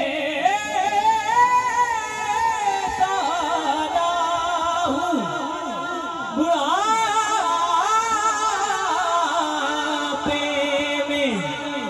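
A boy's voice singing a devotional Urdu/Punjabi kalam into a microphone, amplified, with long held notes that waver and glide through melodic turns.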